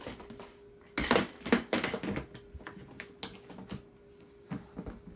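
Clatter and knocks of hard objects being handled, a quick burst of them about a second in and scattered single knocks after, over a faint steady hum.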